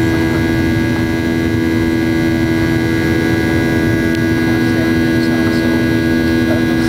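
Cabin noise of a Boeing 737-800 in flight shortly after takeoff: its CFM56-7B turbofans' steady drone, with a constant low hum and a couple of high steady whining tones over a rush of air.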